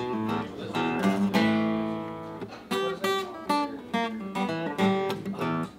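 Cutaway acoustic guitar played by hand: picked notes and strummed chords. A chord rings out for about a second a little over a second in, then a quicker run of single notes follows.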